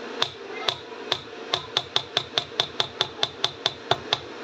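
A spatula tapped repeatedly against the rim of a metal springform pan, knocking cheesecake batter off it. The sharp clicky taps come a couple a second at first and quicken to about five a second, about sixteen in all.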